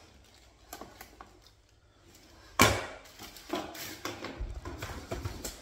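Knocks and clatter of things being handled close to the microphone: a sharp knock about two and a half seconds in, then several smaller ones.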